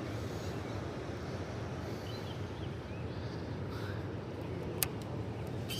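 Steady low outdoor background noise with no voices, and a single sharp click about five seconds in.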